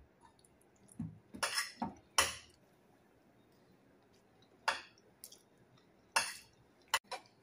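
Metal spoon scraping and clinking against a dinner plate during a meal: a scattered series of short scrapes and clicks.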